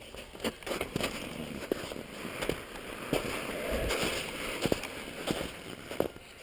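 Mountain bike being ridden over a rough, patchy snow trail: irregular sharp knocks and rattles from the bike and its camera mount over steady tyre noise on snow and dirt.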